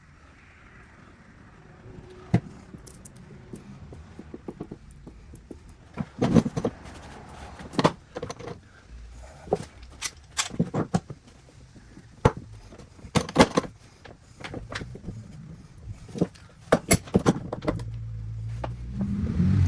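Irregular knocks, clicks and clatter of objects being handled and moved, with a low steady motor hum coming in near the end.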